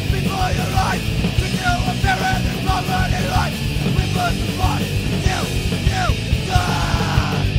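Street punk recording played by a full band: distorted electric guitars, bass and fast drums, with a high line bending up and down in pitch over the top.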